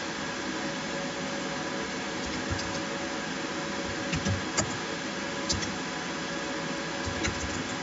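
A few scattered computer keyboard keystrokes, mostly in the second half, over a steady background hiss.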